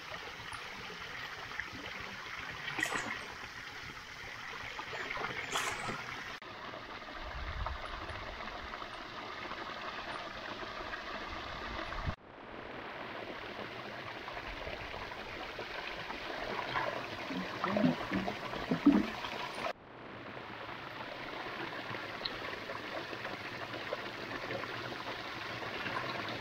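Steady rush of running water, changing abruptly in tone three times, with a few short louder knocks about two-thirds of the way through.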